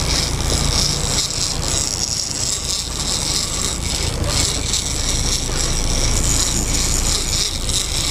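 Boat's outboard engine running under way, with wind and the rush of water and wake along the hull. The engine's steady low drone drops away about a second in, leaving rough water and wind noise.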